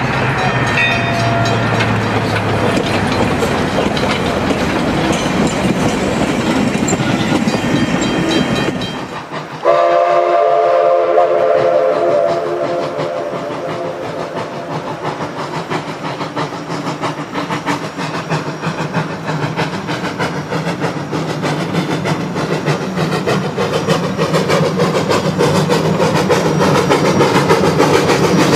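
Steam locomotive running by for about nine seconds. It then changes abruptly to a steam whistle chord, blown for about two seconds. A narrow-gauge Denver & Rio Grande Western steam locomotive follows, working its freight train across a bridge and growing louder as it approaches.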